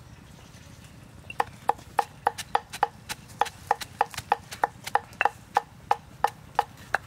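Pestle pounding roasted peanuts in a stone mortar: even, sharp knocks at about three strikes a second, each with a short ring, starting about a second and a half in.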